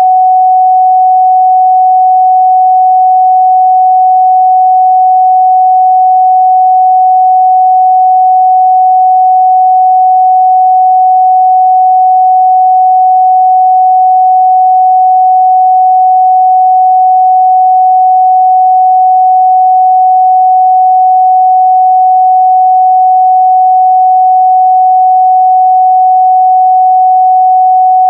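A steady, loud 744 Hz pure sine-wave test tone, a single unchanging pitch with no other sound.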